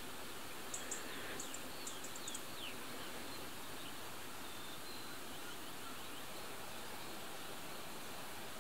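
Outdoor ambience of small birds chirping and whistling over a steady hiss. The calls cluster in the first three seconds, with only an occasional faint chirp after that.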